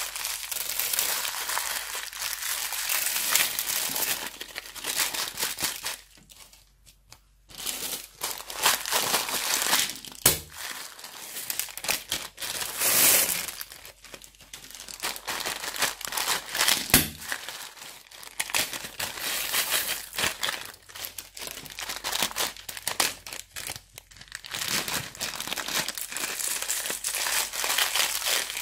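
Crunchy slime made with plastic bags being worked by hand, crinkling and crackling continuously. There is a short pause about six seconds in, and a couple of sharp pops later on.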